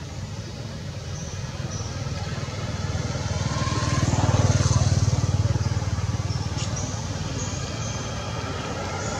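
A motor vehicle's engine running as it passes, growing louder to a peak about halfway through and then fading.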